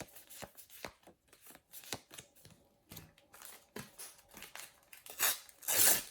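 Paper stickers being handled and flipped through, a string of small clicks and rustles, then two louder rips near the end as the next foil sticker packet is torn open.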